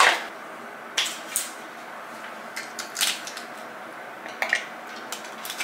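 Small handling noises as face cream is taken from its jar and applied by hand: about six light taps and clicks spread through, with soft squishy touches, over a faint steady room hum.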